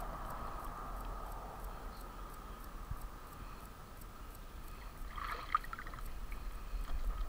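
Water lapping and sloshing at the pond's edge as a bass is released by hand, with a brief burst of splashing about five seconds in, over a low wind rumble on the microphone.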